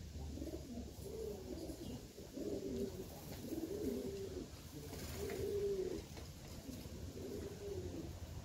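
Miro pigeons cooing: a run of low, rolling coos, one phrase after another, over a low wind rumble on the microphone.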